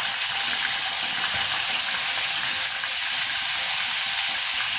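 Tilapia pieces frying in hot oil in a wok: a steady, loud sizzle.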